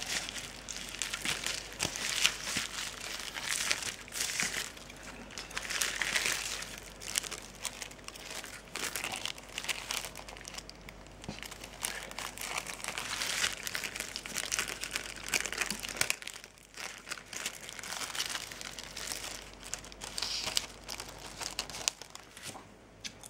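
Plastic packaging, bubble wrap and a clear plastic bag, crinkling and rustling as it is handled and unwrapped. The sound comes in irregular bursts of crackle with a few brief lulls.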